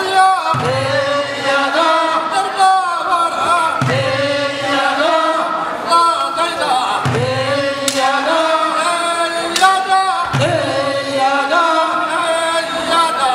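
A group of men chanting a Korean fishermen's net-hauling work song in short sung phrases that come round about every three seconds.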